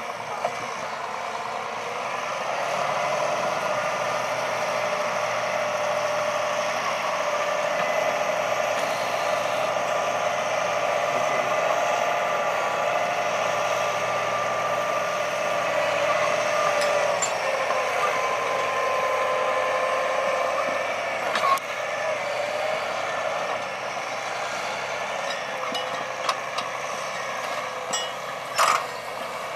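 John Deere 8335R tractor's six-cylinder diesel engine running steadily under load while pulling a nine-furrow plough, with a few sharp clicks or knocks in the later part.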